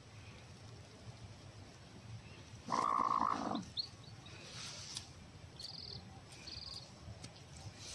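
A broody Aseel hen gives one harsh, rough growl about three seconds in, her warning as a hand reaches under her. Newly hatched chicks peep faintly a few times afterwards.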